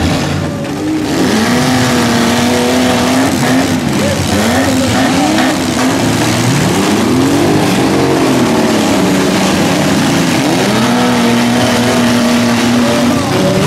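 Several demolition-derby mini trucks' engines revving hard, their pitch rising and falling again and again as the vehicles accelerate and push against each other.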